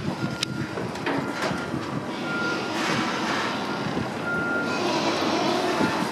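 A vehicle reversing alarm beeping on and off, with a PCC streetcar rolling closer along curved track. Near the end the streetcar's wheels start to squeal on the curve.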